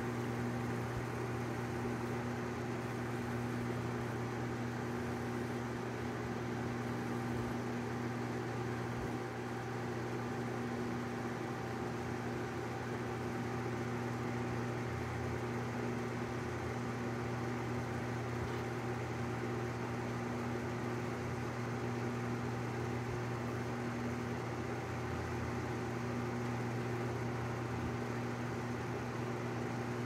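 Electric fan running with a steady, unchanging hum and whir.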